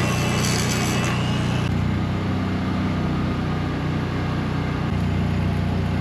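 An engine idling steadily at a constant speed, with a high hiss over it that stops about a second and a half in.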